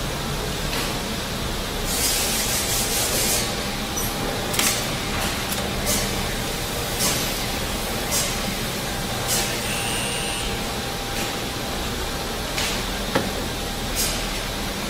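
Construction-site ambience: a steady low machinery rumble with irregular sharp knocks and clanks about once a second. A quick rattle of knocks comes about two seconds in, and a short high beep sounds near the middle.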